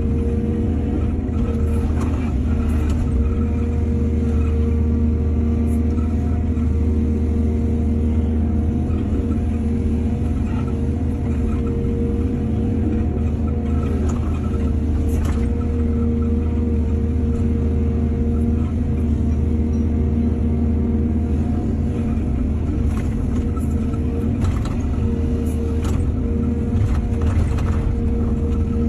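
Excavator's diesel engine running steadily, with occasional knocks.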